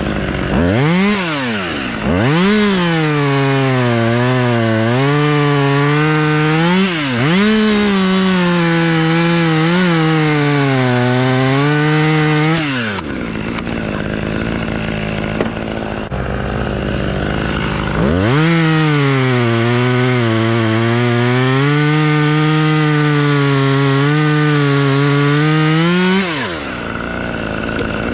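Chainsaw cutting wood in two long full-throttle runs, its pitch sagging and wavering under load, dropping back to a steady idle for a few seconds midway and again near the end.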